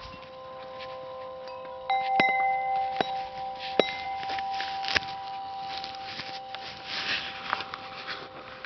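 Metal wind chime struck several times, its tubes ringing with long, overlapping tones, with a few clearer strikes between about two and four seconds in.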